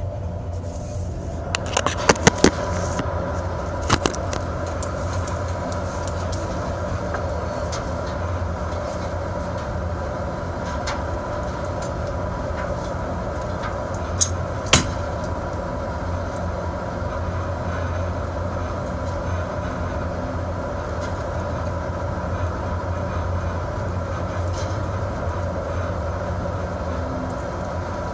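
Steady low drone of a crab fishing boat's engine and machinery heard from inside the wheelhouse, with a handful of sharp knocks in the first few seconds and two more about halfway through.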